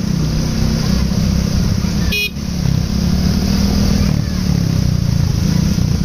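Sumber Jaya coach approaching slowly, its diesel engine running under a loud, low basuri telolet horn. The sound drops out briefly about two seconds in.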